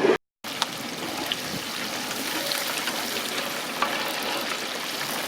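A steady hissing noise with a few faint clicks, starting after a sudden break to silence a quarter second in.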